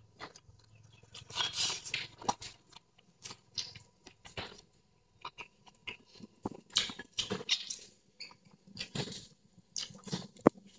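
A person chewing stir-fried snake cooked with its bones left in: wet, crackly mouth sounds and crunching bites, with a few light clicks of chopsticks on a porcelain bowl.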